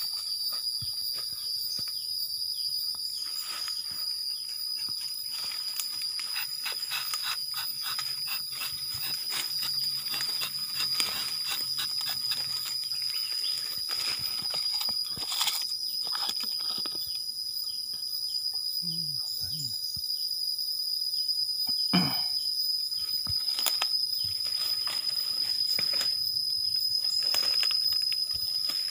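Insects droning steadily on one high pitch, with many small clicks and scrapes throughout.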